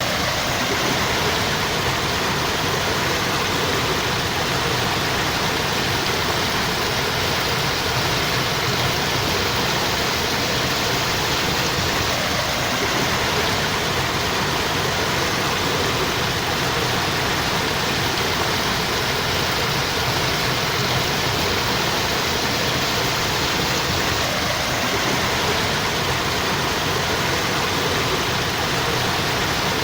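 Water flowing steadily, an even rush that does not change.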